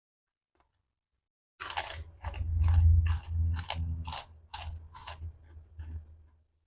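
Close-miked chewing of food with crunchy bites. It starts about a second and a half in, goes at about two crunches a second, and fades toward the end.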